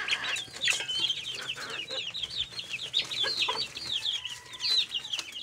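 A crowded flock of chickens and young chicks feeding: rapid, high peeping and clucking, several calls a second, with a few sharp taps of beaks pecking maize and rice from a small metal cup.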